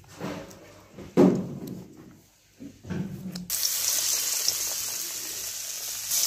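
Battered round potato slices deep-frying in hot oil in a wok: a steady sizzle that starts abruptly about three and a half seconds in. Before it come a few brief handling sounds, one loud about a second in.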